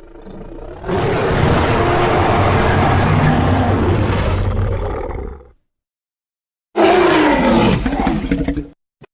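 Custom crocodile roar sound effects: a long, rough roar of about four seconds, then after a moment of silence a shorter roar whose pitch bends.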